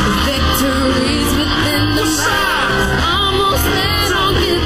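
Pop song with a voice singing over a steady beat and bass.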